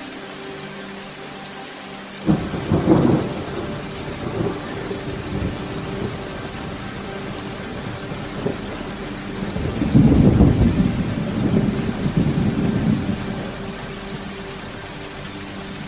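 Steady rain with thunder: a sudden crack that breaks into a rumble about two seconds in, then a longer, louder roll of thunder about ten seconds in that fades over a few seconds.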